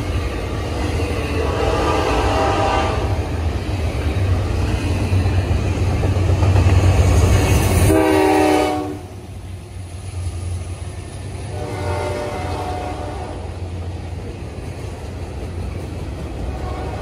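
Freight trains rolling past with a steady low rumble of wheels on rail, while a diesel locomotive's air horn sounds in several blasts. The loudest blast comes just before eight seconds in and cuts off sharply, with fainter blasts before it and again a few seconds later.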